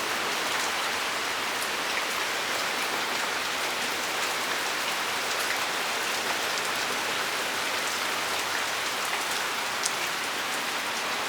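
Steady rain falling during a thunderstorm: an even hiss of rain with scattered sharp ticks of single drops.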